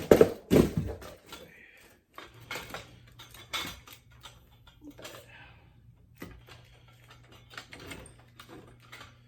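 Knocks and clatter from a light stand with boom arm being handled on a table: two loud knocks at the start, then scattered small clicks and taps. A low steady hum comes in about two seconds in.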